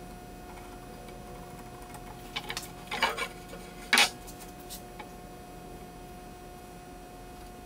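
Light handling knocks and taps of a wooden axe handle and a pencil against a wooden workbench: a short cluster of clicks, then one sharper knock about four seconds in, then a couple of faint ticks. A steady faint hum sits underneath.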